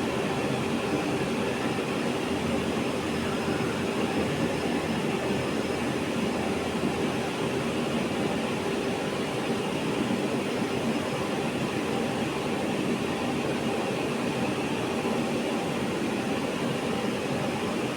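CNC grinding machine running steadily: a constant rushing grind with a steady hum, no breaks or changes in level.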